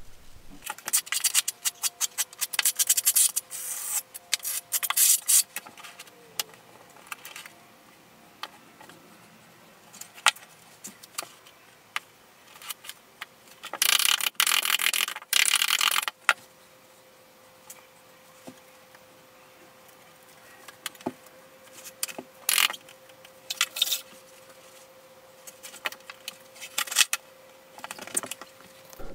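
Intermittent scraping and rubbing as Carrara marble mosaic tile sheets are worked into thinset on a shower floor, in short bursts with quiet gaps, the longest lasting about two seconds midway.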